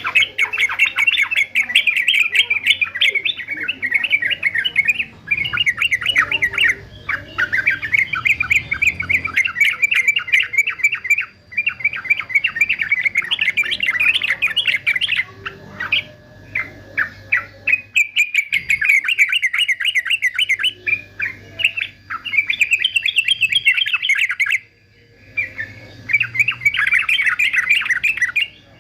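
Male yellow-vented bulbul (trucukan) singing, fast bubbling chattering phrases repeated in runs of a few seconds with brief pauses between them.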